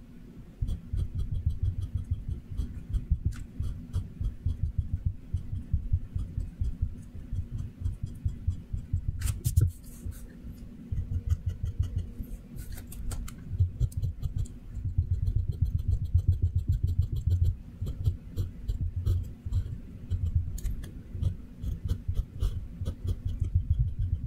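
Pencil scratching on paper in rapid, repeated short hatching strokes, with a sharper scratch about nine seconds in.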